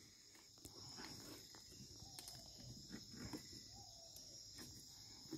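Near silence: a faint, steady, high chorus of night insects, with soft scrapes and rustles of hands digging in loose soil and leaf litter.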